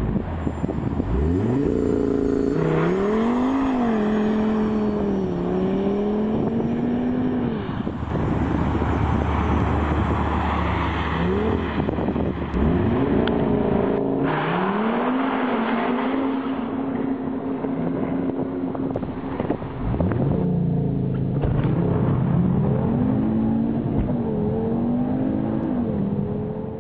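Audi RS3 Sportback's turbocharged 2.5-litre five-cylinder engine accelerating hard. It revs up and drops back at each gear change, several times over, and climbs again from low revs twice, as in launches.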